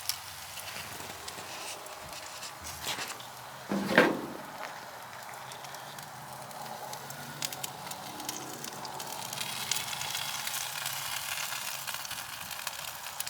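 Chicken halves sizzling over a hot charcoal fire in a kamado grill, fat popping and crackling steadily with many small pops. A single louder knock comes about four seconds in, and the sizzle grows hissier near the end.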